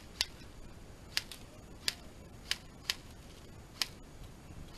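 Airsoft gunfire in a close-quarters game: about seven sharp single cracks, spaced irregularly and with no rhythm.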